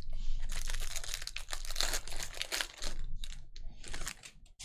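Plastic trading-card packaging being torn open and crinkled by hand: a dense run of crackling for about three seconds, then a few short crinkles that die away near the end.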